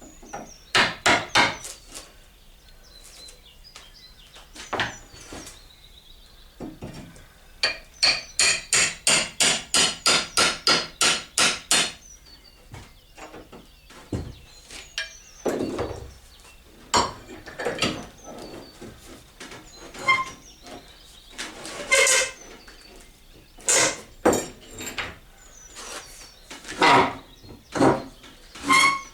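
Hammering: a quick even run of blows, about four a second for several seconds near the middle, with scattered single and paired knocks before and after.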